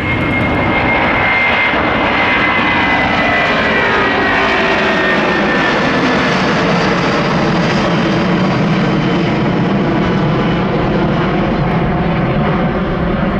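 Airbus A330-300's twin Pratt & Whitney PW4000 turbofans at takeoff thrust as the airliner departs. The jet noise is loud and steady, with a whining tone that slowly falls in pitch as it passes.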